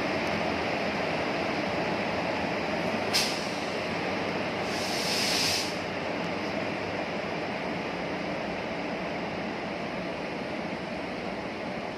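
Indian Railways electric locomotive and its coaches rolling slowly past on departure: a steady rumble of wheels and running gear. There is a sharp click about three seconds in and a short burst of hiss about five seconds in.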